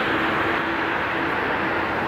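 Boeing 787-9's GE GEnx-1B turbofan engines running steadily as the airliner moves slowly on the runway before takeoff: an even rushing noise with a constant droning tone.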